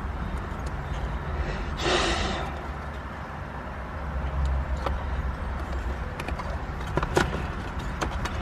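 Scattered light clicks and knocks of tools and parts being handled, over a steady low rumble, with a short burst of hiss about two seconds in.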